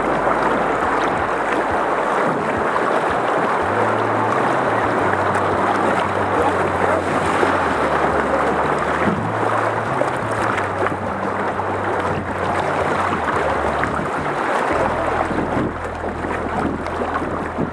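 River water rushing and splashing through riffles around a moving canoe, with paddle strokes in the water and wind rumbling on the microphone.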